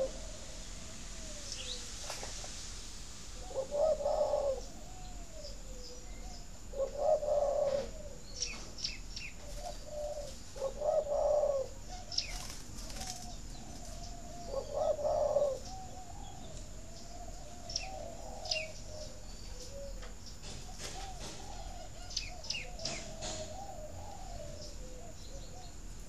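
Several spotted doves cooing, with a louder coo phrase about every three to four seconds in the first two-thirds and softer, wavering cooing running between them. Short, high chirps from small birds are scattered over it.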